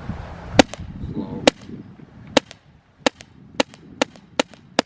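Paintball markers firing about eight shots at uneven intervals of roughly half a second. Each shot is a sharp crack followed at once by a fainter click, and the first two are the loudest.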